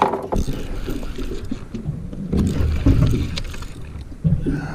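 Wind and water noise on a small aluminium fishing boat: a steady low rumble, with a few light knocks from fishing gear being handled.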